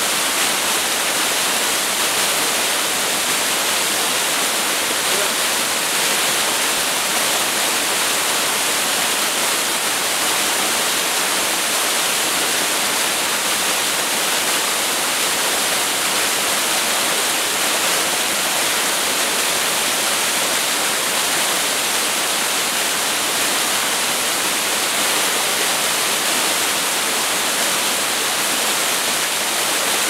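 Small waterfall spilling in thin sheets over a rock ledge and splashing onto the boulders below: a steady, even rush of falling water.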